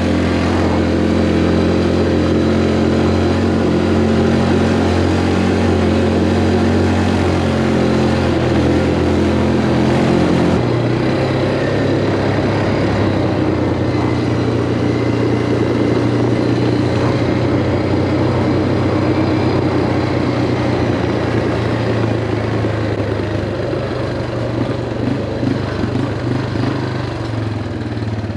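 ATV (quad bike) engine running while riding, with a steady engine note that shifts in pitch about ten seconds in.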